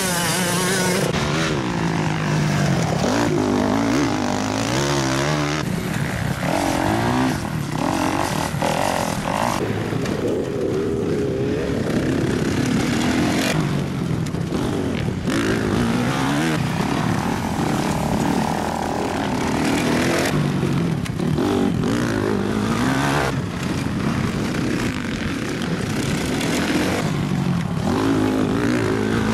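Motocross dirt bike engines revving hard through a corner. The engine note climbs, drops at each shift or roll-off, and climbs again, over and over as several bikes pass in turn.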